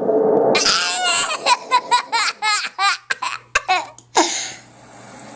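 Baby laughing hysterically: a string of quick, pitched belly-laugh bursts several a second, with one last burst after a short gap, a reaction to sound effects being played.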